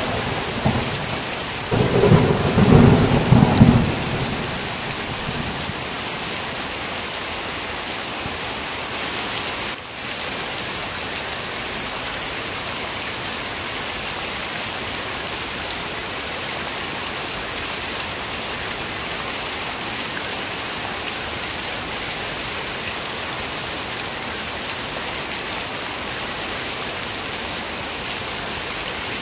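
Heavy rain falling steadily, with a rumble of thunder about two seconds in that lasts a couple of seconds before the rain carries on alone.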